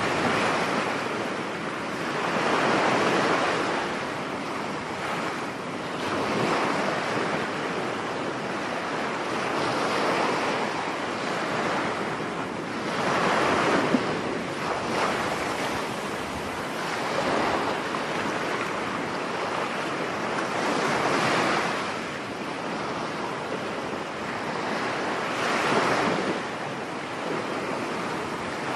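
Storm surf: waves breaking on a beach, the rush swelling and ebbing every few seconds, with wind over it.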